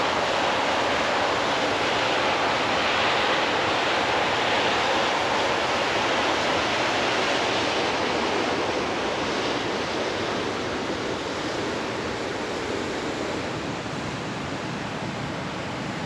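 Guadalupe River water rushing below the outflow of Canyon Lake Dam, a steady hiss that grows slightly quieter in the second half.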